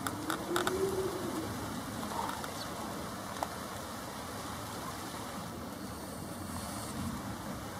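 Steady rain falling, with a dove or pigeon cooing once about a second in, a low call that rises and then falls.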